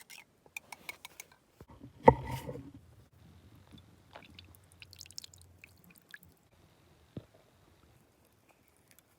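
A loud knock about two seconds in, ringing briefly, amid scattered small clicks and rustles of something being handled, with one more sharp click near the end.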